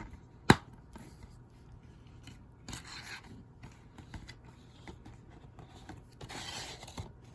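Handling of a plastic DVD case and disc: a sharp click about half a second in, then soft rubbing and sliding sounds with a few light ticks.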